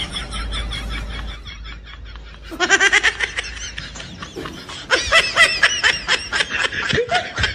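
A woman laughing through tears in quick, high-pitched pulses. The laughter drops away a second or two in, comes back, and is loudest from about five seconds in.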